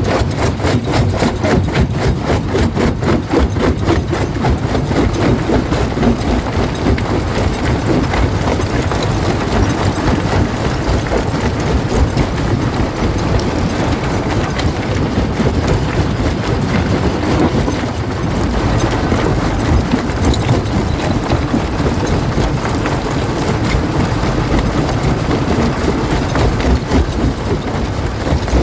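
Stone jaw crusher running and crushing rock: a loud, continuous grinding rumble, with a fast regular beat in the first few seconds.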